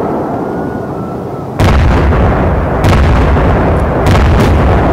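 Fireworks going off: a faint thin whistle over a fading rumble, then a sudden loud bang about a second and a half in, followed by rumbling and several sharp cracks.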